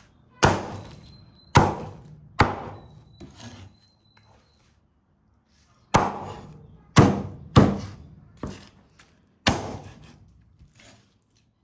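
Meat cleaver chopping through roasted lamb ribs onto a wooden cutting board: heavy strikes, about three and then about five more, with a pause of about two seconds between the groups.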